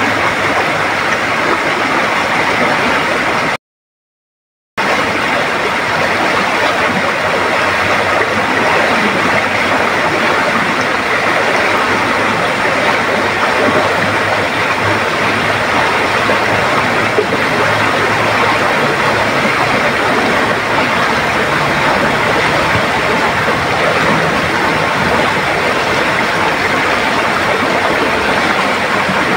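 Flooded river rushing in a fast, strong current: a loud, steady roar of water that cuts out completely for about a second near the start.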